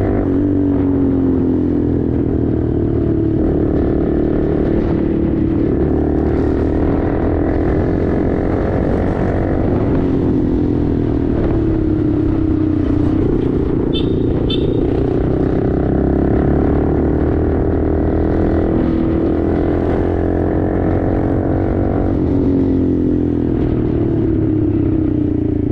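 Honda Grom's single-cylinder engine running through a tuned aftermarket exhaust while riding, its note rising and falling in long sweeps as it speeds up and eases off. Two short high beeps sound about halfway through.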